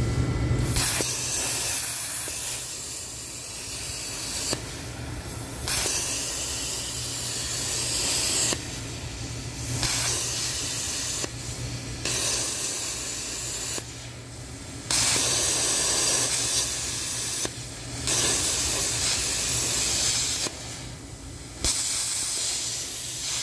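Arccaptain Cut 50 plasma cutter cutting thin steel: a loud hiss of the arc and air in a string of strokes a few seconds long. Each stroke breaks off for a second or so with a softer hiss, then starts again, about seven times, as letters are cut. A steady low hum runs under it.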